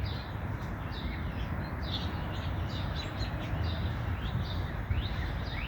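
Outdoor birds calling: many short, high chirps and down-slurred call notes scattered through, over a steady low background rumble.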